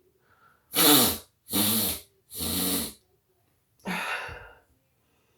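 A young person's fit of explosive sneeze-like expulsions, set off by inhaled black pepper stinging the nose: three loud ones in quick succession, then a second later a shorter, falling breathy one.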